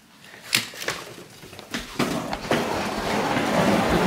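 A few short knocks and clatters, then from about two seconds in a steady rushing noise that grows louder.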